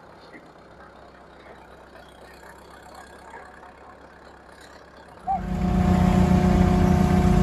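Low background noise, then about five seconds in a loud engine cuts in suddenly and runs steadily with a droning hum.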